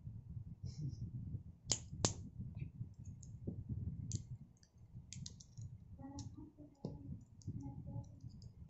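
Small crackles and clicks of a plastic-wrapped pack of AAA batteries being handled and unwrapped by hand, with two sharper clicks about two seconds in.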